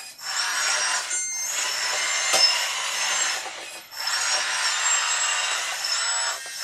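Kabolite K966 1:14 RC hydraulic wheel loader running: the electric hydraulic pump and drive motors whine with a busy mechanical noise, as high whining tones rise and fall while the bucket is lifted. The noise drops out briefly about a second in and again just before four seconds.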